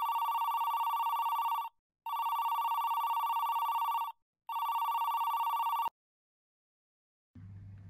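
Telephone ringtone: three long trilling rings separated by short gaps, then it cuts off suddenly.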